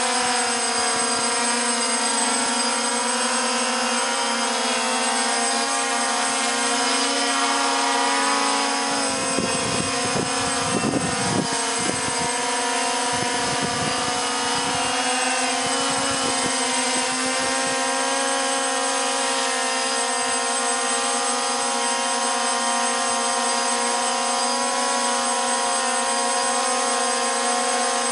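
DJI Phantom quadcopter hovering close by, its T-Motor MN2214 920KV brushless motors and propellers giving a steady, multi-tone buzzing whine. A brief low rumble joins it between about nine and twelve seconds in.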